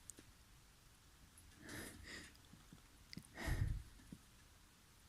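A person's breathy, catching breaths as a sneeze builds up: a quick double breath about two seconds in, then a louder, deeper breath about three and a half seconds in.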